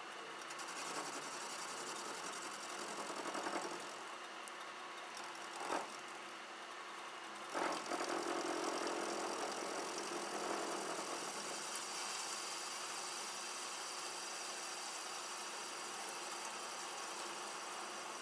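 Metal lathe running with a tool facing the end of a spinning workpiece held in a four-jaw chuck: a steady machine hum and cutting noise. There are three short knocks in the first half.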